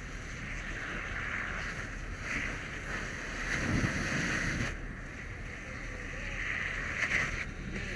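Steady hiss of water spraying from a fire hose nozzle onto a burning house, with a brief low rumble about four seconds in.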